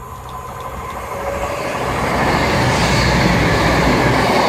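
Class 221 Super Voyager diesel train passing through at speed: a rush of wheel, rail and engine noise that swells over the first two seconds as it nears, then holds loud.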